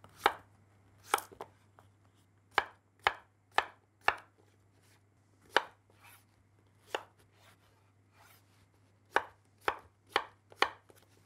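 Chef's knife dicing zucchini on a wooden chopping board: a dozen or so sharp knocks of the blade through the flesh onto the board, unevenly spaced, with a pause of about two seconds in the middle.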